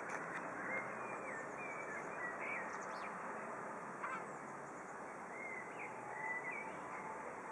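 Small birds chirping: short, curved whistled notes and twitters come at scattered moments over a steady background hiss.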